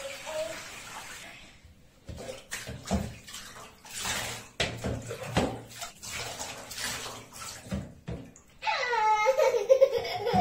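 Bath water in a bathtub: a tap's running stream that stops about a second in, then scattered splashes and sloshing as a wet cat is rubbed and rinsed by hand. Near the end, a loud drawn-out cry.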